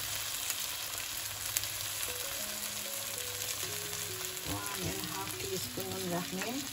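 Soaked rice frying in hot mustard oil in a stainless steel wok, a steady sizzle.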